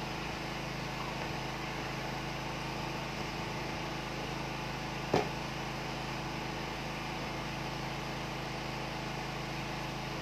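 Steady background hum, with one sharp click about halfway through.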